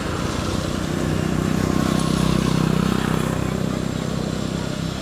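A motor vehicle passing by on the road, its engine hum building to a peak about halfway through and then fading away.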